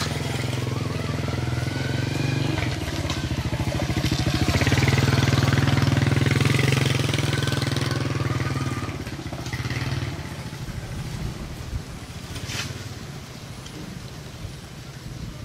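Small motorcycle engine running, growing louder through the middle and fading away after about nine seconds, with a single sharp click near the end.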